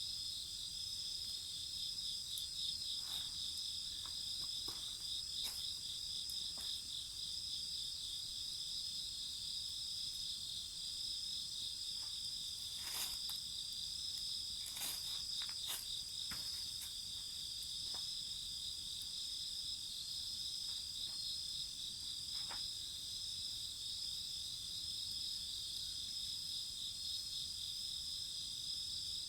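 Crickets and other insects chirping steadily in several high-pitched layers, one a fast pulsing trill. Occasional sharp crackles and pops from a wood fire break in, clustered about halfway through.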